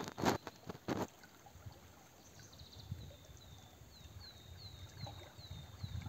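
A few sharp crackling knocks in the first second, then a small bird singing a run of short, falling high notes, about three a second, from about two and a half seconds in, over a faint outdoor hush.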